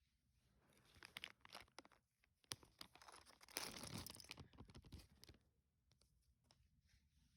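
Faint crinkling and tearing of plastic packaging with small plastic clicks, as Lego packaging and pieces are handled; busiest and loudest about halfway through.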